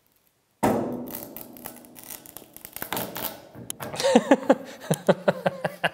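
A miter guillotine's blade is pressed down through a spruce offcut. After a sudden start about half a second in, the wood crackles and splinters for about three seconds, and the cut comes out ragged. Near the end a man laughs.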